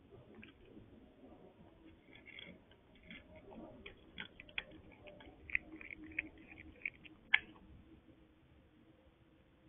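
Cat eating from a bowl: irregular soft clicks of chewing, thickest in the middle, with one sharper click about seven seconds in, over a faint steady hum.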